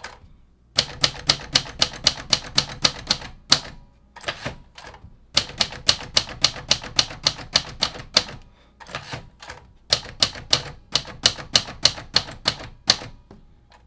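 Royal Sabre manual typewriter being typed on, with its typebars striking the platen in quick runs of sharp key strikes at about five or six a second. The strikes come in three bursts with short pauses between, as the keyboard is typed through character by character in lowercase.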